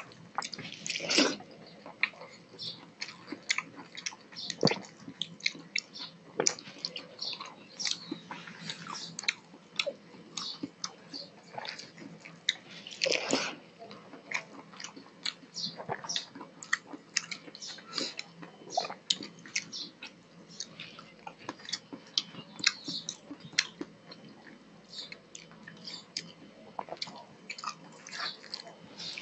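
Close-miked wet chewing and mouth sounds of a man eating rice and fish curry, with soft squishing as his fingers mix rice on a steel plate. The sound is a steady run of irregular short clicks, a little louder about a second in and again near the middle.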